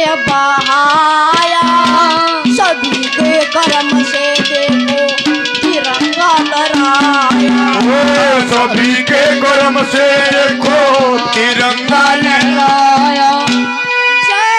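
Ragni folk music played live through a PA: a boy's voice singing a melodic line over a steady harmonium drone and a fast, even hand-drum rhythm.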